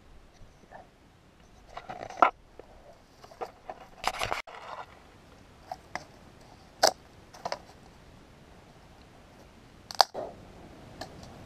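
Dry cane stalk being bent and broken by hand, giving a handful of sharp cracks, with crunching of dry straw between them.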